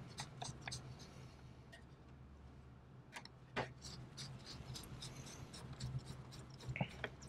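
Faint scraping and small clicks of a hand screwdriver turning out the small screws of a server's RAID cable connector, with occasional sharper taps of metal on plastic, over a low steady hum.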